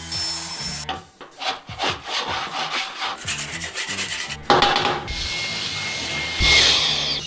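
Cordless handheld vacuum cleaner sucking up wood shavings and litter, with the nozzle scraping and rubbing repeatedly. A thin steady whine stops about 6.5 s in as the battery runs flat.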